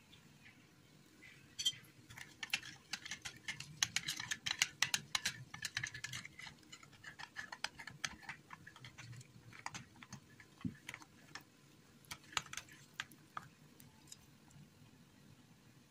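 Metal spoon stirring flour into a wet mixture in a bowl, tapping and clicking against the bowl in quick irregular runs, busiest in the first half and sparser towards the end.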